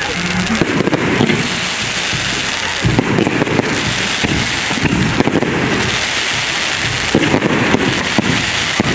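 Fireworks going off: a continuous hiss of spark fountains over a dense crackle of many quick pops.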